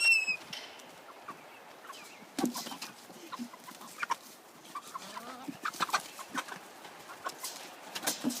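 Chickens clucking and squawking: a loud squawk right at the start, then scattered clucks and short clicks, with a brief cluster of calls about five to six seconds in.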